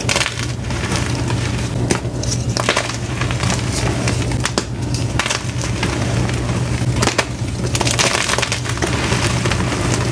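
Blocks of plain white and blue-dyed gym chalk crushed and crumbled in bare hands: continuous dry, gritty crunching broken by irregular sharp snaps as pieces break, over a low steady hum.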